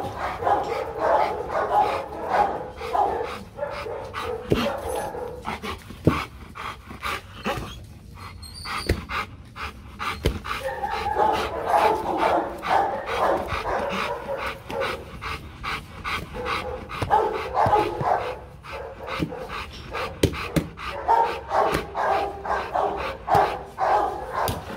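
Rottweiler barking again and again in quick short barks, easing off briefly about eight seconds in before starting up again.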